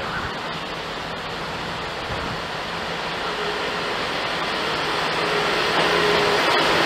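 Northern Class 158 diesel multiple unit approaching, its sound growing steadily louder, with a steady whine coming in about halfway through, over strong wind on the microphone.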